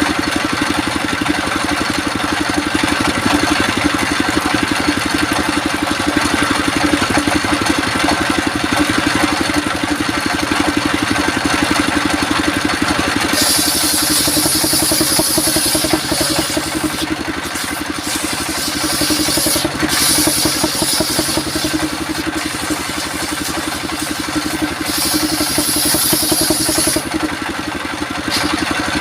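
Circular sawmill machinery running steadily. A higher hiss comes and goes through the second half.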